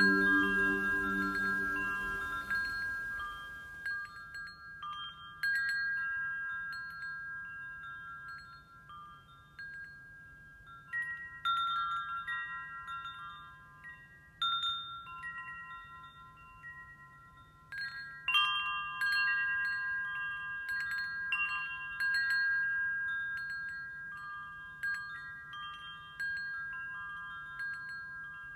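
Metal tube wind chimes ringing, struck at uneven intervals every few seconds, each strike setting off several overlapping high tones that slowly fade. A deeper ringing tone dies away in the first few seconds.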